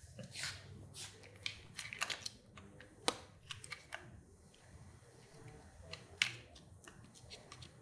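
Side cutters snipping and trimming at a motorcycle's handlebar switch housing: a scattered series of small faint clicks and snips, the sharpest about three seconds and six seconds in.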